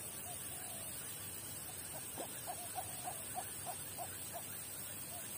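Faint open-air background hiss with a run of short, evenly spaced animal call notes, about three a second, starting about two seconds in and stopping a couple of seconds later.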